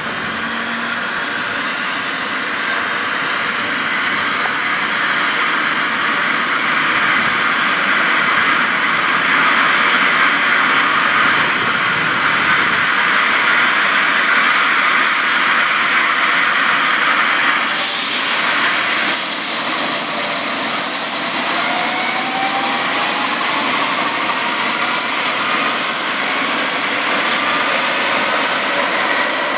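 Eurocopter EC135 helicopter's twin turbine engines starting up. A jet-like hiss and whine grows louder over the first several seconds, and thin whistling tones rise slowly in pitch as the engines spool up and the main rotor begins to turn.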